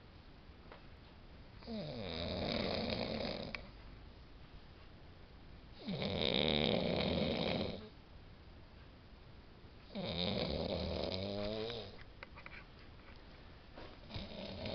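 A person snoring in long, regular snores, one about every four seconds: three full snores, with a fourth starting near the end.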